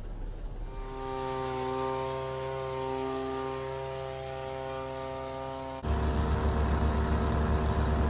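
Handheld two-stroke leaf blower running at a steady high speed, blowing dust off a combine header. About six seconds in it cuts off abruptly to a louder low rumble.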